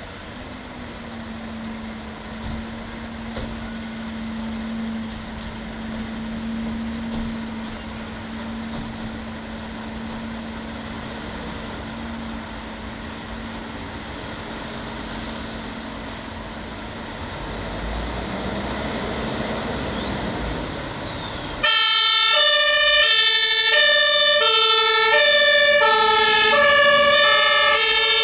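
Fire engines running with a steady low hum and some ticking, the engine sound swelling and falling off shortly before the horns start. About 22 seconds in, several compressed-air two-tone horns (pneumatic Martinshorn) start together loudly, their alternating high and low notes overlapping out of step: a fire-brigade turnout sounding its sirens.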